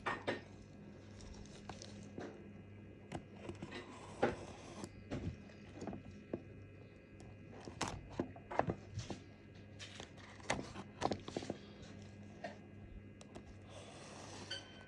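Irregular clicks, taps and light knocks from handling a small diecast model car and its plastic and cardboard packaging while unboxing, with a brief rustle near the end over a steady low hum.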